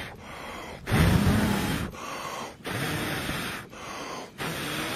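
A person blowing hard up into the embers of a wood fire from underneath, in several long rushing blows with breaths drawn in between, fanning the hot coals into flame.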